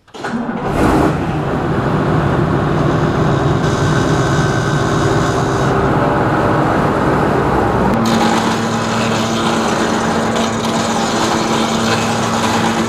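Farm machinery engines running steadily under load. The sound changes abruptly about eight seconds in to a different engine note with a steady hum.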